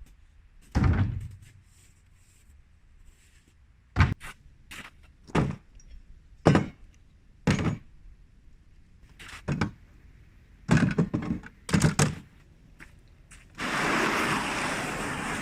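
A series of about ten irregular knocks and thunks, some in quick pairs, like things being handled and set down. Near the end comes about two seconds of rustling, scraping noise.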